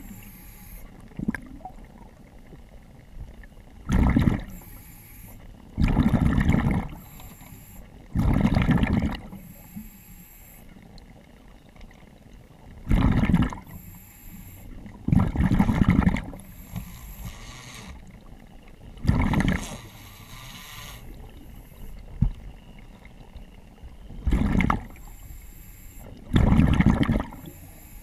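A diver breathing underwater through a demand regulator: loud gurgling bursts of exhaled bubbles about every two to four seconds, with a fainter high hiss between them as gas is drawn in.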